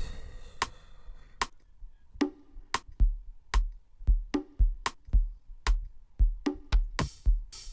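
Programmed amapiano drum pattern playing back from FL Studio. A sharp percussion shot ticks on its own at first. About three seconds in a deep kick drum comes in on a steady beat of just under two a second, with conga and bongo hits between the kicks. Open hi-hats join near the end.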